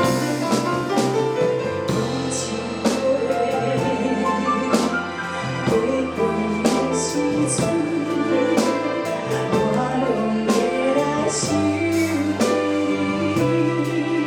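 Background music: a song with drum kit, a steady bass line and keyboard, with regular drum hits.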